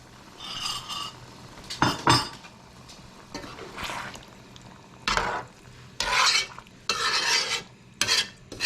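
A cooking utensil scraping and stirring pumpkin curry in a pot, in about seven separate strokes, with a faint sizzle between them.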